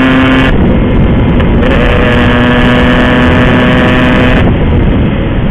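Yamaha RX-King's 135 cc two-stroke single-cylinder engine under way at speed, with wind rush on the microphone. The engine note holds at a steady pitch, drops away about half a second in, climbs back and holds, then falls off again near the end.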